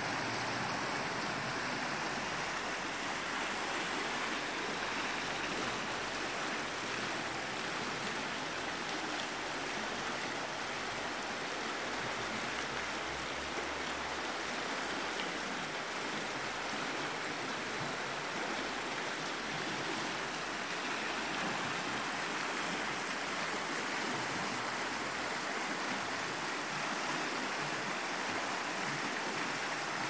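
Fast, shallow river current rushing and burbling over stones and riffles: a steady, even rush of water.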